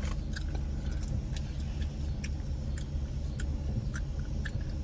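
Car idling, heard from inside the cabin as a steady low hum, with light clicks scattered unevenly through it.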